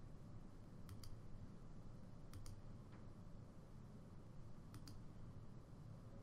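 Faint computer mouse clicks, three of them a second or two apart, each a quick pair of ticks, as corners are clicked on a map.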